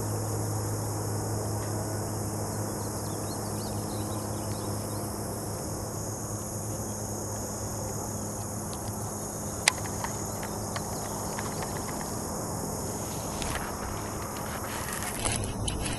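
Steady insect chorus, with a low steady hum underneath and a single sharp click about ten seconds in.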